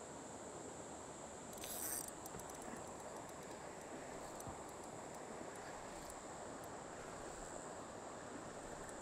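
Faint, steady high-pitched drone of insects over a quiet outdoor hiss, with a brief rush of noise a little under two seconds in and a few faint ticks after it.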